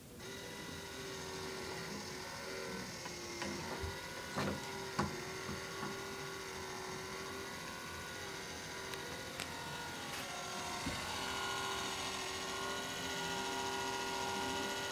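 Small electric motor of a fishing robot whirring steadily as it drives the reel and mechanism, with a few sharp clicks and knocks a few seconds in; its pitch shifts about eleven seconds in.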